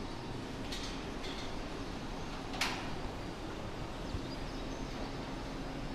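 Steady low machinery hum and hiss in a rum distillery's fermentation hall, with a few sharp metallic clicks, the loudest a little over two and a half seconds in.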